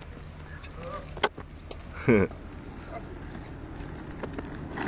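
Skate wheels rolling on an asphalt court, a steady low rumble, with a sharp click a little over a second in. About two seconds in comes a brief shouted vocal exclamation that falls in pitch.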